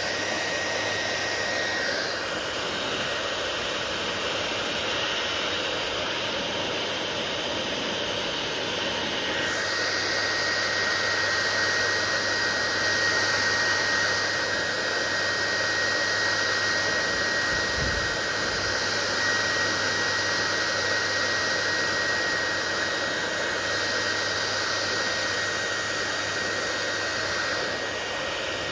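Electric hair dryer running steadily: a continuous rush of blowing air over a thin, steady high whine and a low motor hum. The character of the rush shifts a couple of seconds in and again about nine seconds in, with a brief low bump near the middle.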